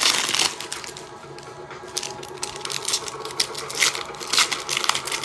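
Trading-card pack wrappers crinkling and cards clicking as they are handled, in irregular sharp crackles with a loud rustling burst at the start, over background music.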